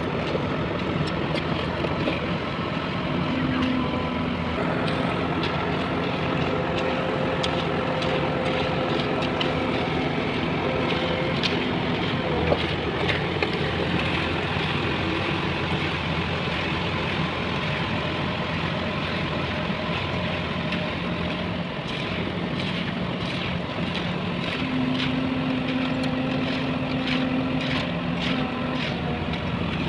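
Heavy construction vehicle engines running steadily, with many small clinks and knocks scattered throughout.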